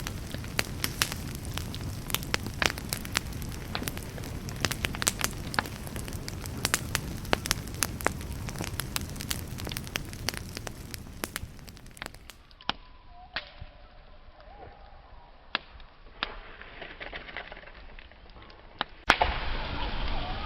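Wood campfire burning with a steady low rumble and frequent sharp crackles and pops. About twelve seconds in, the sound abruptly turns quieter and duller, with only occasional pops. Near the end a loud pop is followed by a louder, duller rush.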